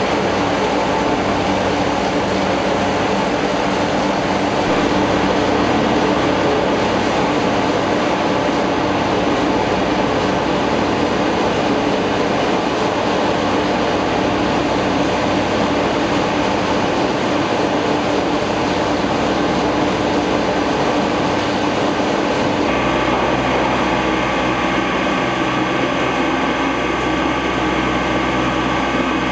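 Olive mill machinery running steadily: the screw conveyor feeding washed olives to the crusher, a continuous loud mechanical rumble. About two-thirds of the way through, it changes abruptly to a steadier machine hum with several held tones.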